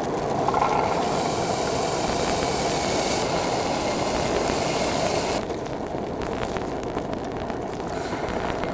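Steady rushing hiss of a canister gas camping stove burning under a pot, with plastic-bag rustling as grated cheese is tipped in. The hiss is brighter for the first few seconds and drops about five seconds in.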